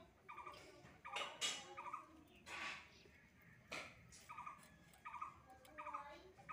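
Koi fish being scaled and cleaned against a bonti blade: a few short scraping strokes, the loudest about a second in and others near two and a half and near four seconds. Between them a domestic fowl gives short, repeated calls.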